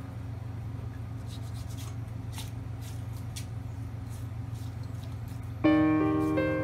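Soft scraping and rustling of a knife and hands working the skin off a pufferfish on a cutting board, over a steady low hum. About five and a half seconds in, music starts suddenly with held chord tones and is the loudest thing.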